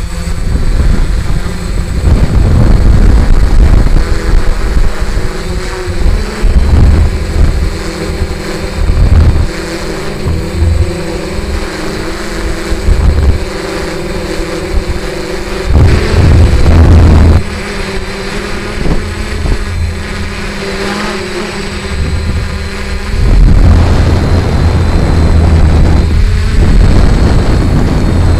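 Quadcopter's electric motors and propellers whirring steadily. Strong gusty wind buffets the microphone in loud, uneven low rumbles, which are heaviest near the end.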